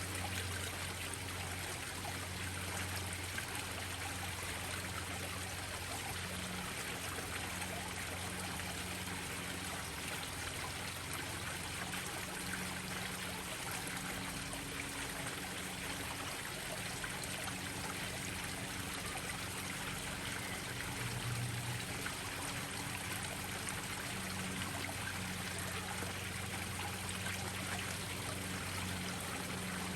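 Water from a koi pond's waterfalls splashing and trickling steadily into the pond, with a faint low hum underneath.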